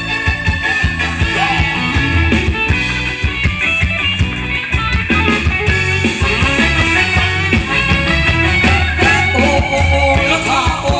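Live band playing Thai ramwong dance music through a PA, with a steady beat and a singer.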